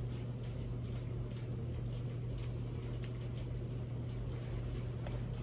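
Tacos being eaten close to the microphone: faint chewing and crunching clicks over a steady low hum.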